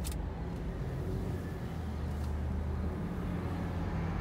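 2016 Subaru Legacy driving slowly, heard from inside the cabin: a steady low engine hum with road noise.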